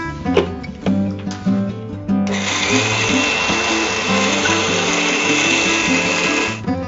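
Electric mixer grinder (mixie) running, grinding roasted spices into sambar powder: a steady high whine over a dense hiss that starts about two seconds in and cuts off near the end.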